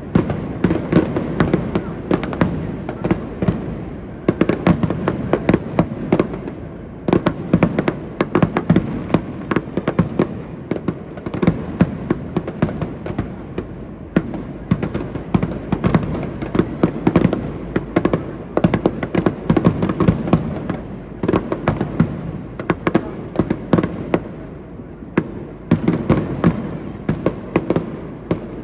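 Fireworks display: rapid, overlapping bangs and crackles of aerial shells bursting, with low booms rolling beneath, continuing without pause.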